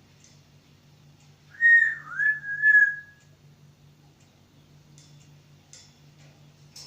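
Pet talking bird whistling: one short whistle in three joined parts about two seconds in, dipping and then holding a level note. Faint scattered clicks follow.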